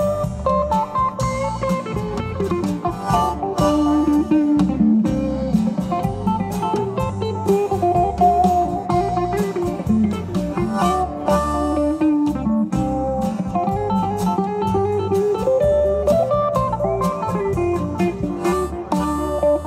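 Live band playing an instrumental break in a song, with guitar to the fore over a steady beat and no singing.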